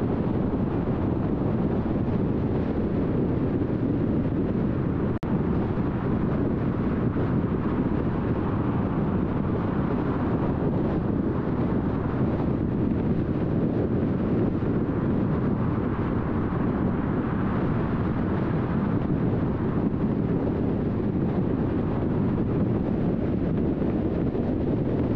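Steady road noise of a car cruising at freeway speed: tyre rumble and wind rush, swelling slightly a couple of times.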